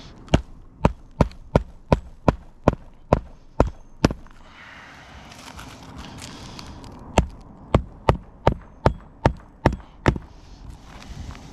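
Hammer driving roofing nails into an asphalt shingle: two runs of quick, sharp blows, about ten and then eight, roughly two to three a second, with a pause of a few seconds between them.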